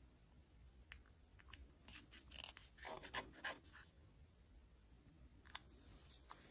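Faint handling of a plastic toy doctor set and its packaging: a few light clicks, with a short spell of crinkling and scraping about two to four seconds in.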